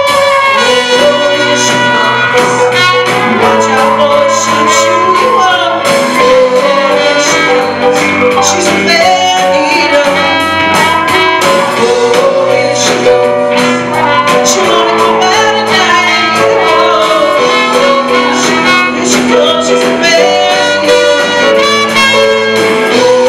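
Live band playing: electric guitars, keyboard and drums, with a wavering sung melody over them.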